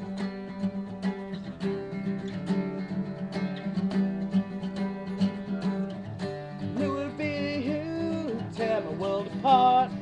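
Acoustic guitar strummed steadily in a regular rhythm. A singing voice comes in over it about seven seconds in.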